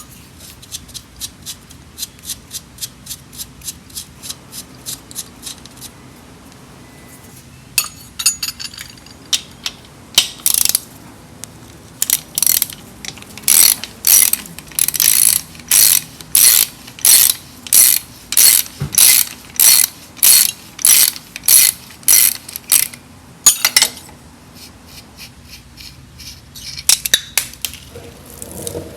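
Socket ratchet clicking as the starter motor's mounting bolts are turned loose: runs of quick, fainter clicks, then a long stretch of louder, evenly spaced clicks at about two a second, and a short final run near the end.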